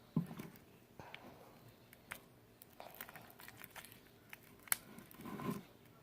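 Hands kneading and mixing sticky, half-activated glue slime on a tabletop: scattered soft sticky clicks, pops and squelches, with a couple of louder squishes near the start and about five seconds in.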